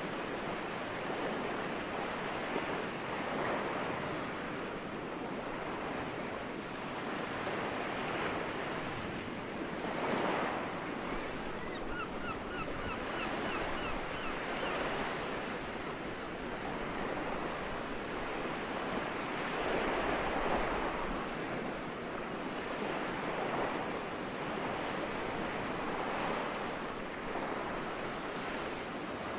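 Soft sea waves washing onto the shore, swelling and easing every few seconds. Midway through, a seagull gives a quick run of about ten short calls.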